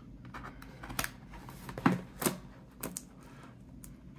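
Cardboard mailing box being pried open by hand, its taped flap worked loose with a series of sharp clicks and taps, the loudest a little under two seconds in.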